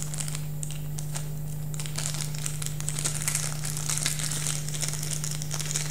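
Small clear plastic bag of guitar picks crinkling and crackling as it is handled in the fingers, busier from about two seconds in.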